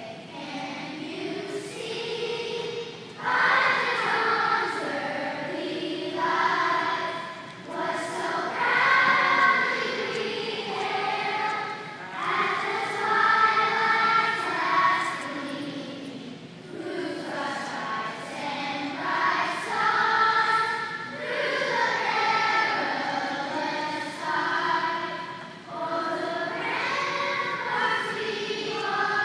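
A choir singing in sustained phrases with brief pauses between them; the singing swells to fuller voices about three seconds in.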